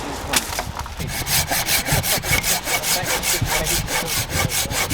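A saw cutting with rapid, even back-and-forth strokes, about six a second, starting about a second in.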